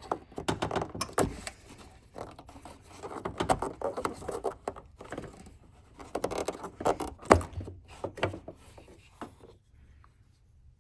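Hands twisting and working loose the plastic high-beam access cap on the back of a Lexus LS460 headlight: scattered plastic clicks, scrapes and rustling, with sharper clicks about a second in and about seven seconds in.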